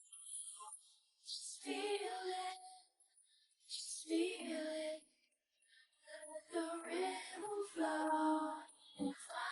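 Music: short sung phrases in a high, childlike voice, three phrases with brief gaps between them.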